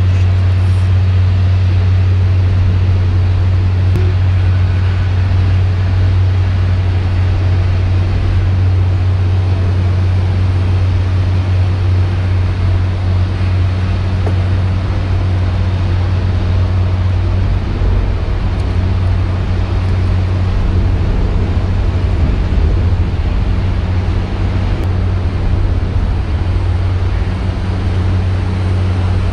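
Loud, steady low hum with a fainter higher hum above it, unchanging throughout, like engine or traffic noise.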